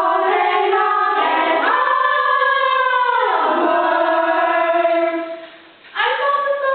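Several young female voices singing long held notes together, with a falling slide about three seconds in; the singing drops away for a moment near the end, then starts again.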